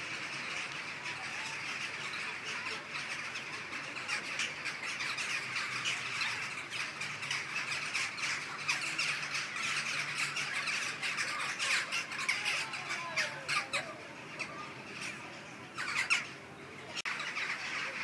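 A large flock of birds in flight, many calling at once in a dense chorus of harsh, squawking calls that is thickest in the middle. A brief loud burst comes near the end, after which the calling thins.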